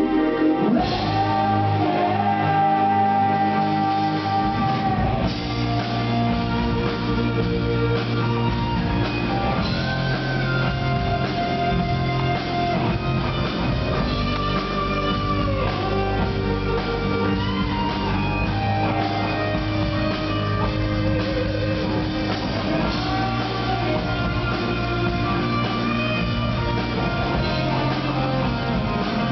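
Progressive rock band playing live: guitar lead over bass and drums, an instrumental passage with no singing.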